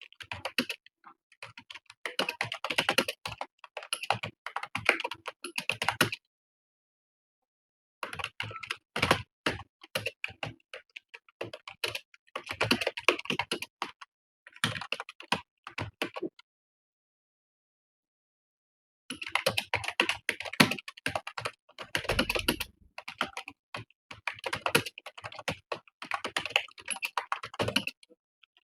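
Fast typing on a computer keyboard: rapid runs of key clicks, broken twice by pauses of about two seconds.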